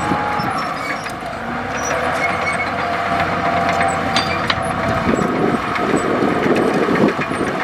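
Komatsu D65E bulldozer's diesel engine running, with a dense, rapid clatter setting in about five seconds in.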